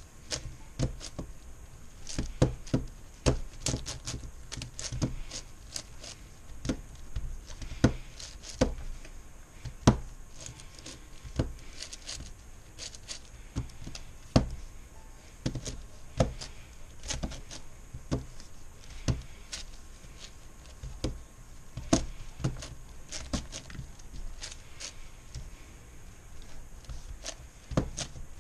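MoYu Meilong 10x10x10 M puzzle cube being turned one-handed during edge pairing: its plastic layers click and clack irregularly, a few turns a second.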